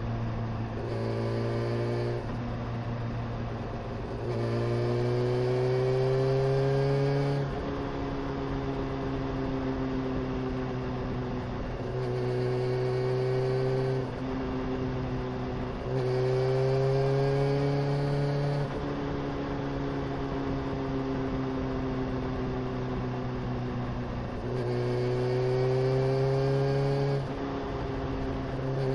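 Honda CBR motorcycle engine under way, rising in pitch and getting louder in four stretches as it is opened up, each ending in a sudden drop as the throttle eases off, with steady running in between.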